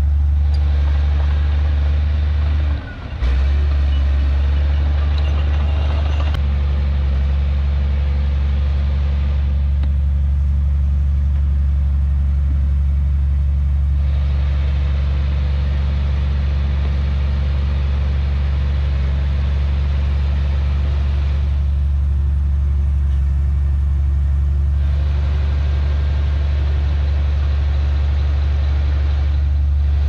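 Heavy diesel engine running with a steady low drone, dipping briefly about three seconds in.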